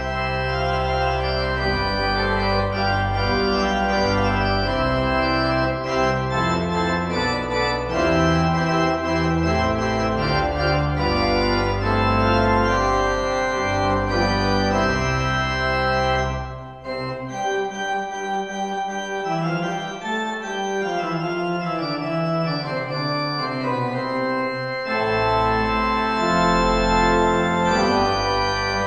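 Church organ playing a slow piece of sustained chords over a deep bass line. The bass drops out about two-thirds of the way through, leaving only the higher chords, and comes back near the end.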